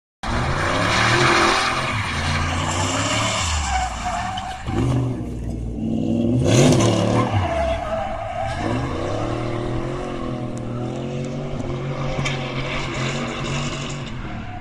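Car drifting: its engine revs up and down again and again, with the loudest rev about six and a half seconds in, over the hiss and squeal of tyres sliding and skidding on the pavement.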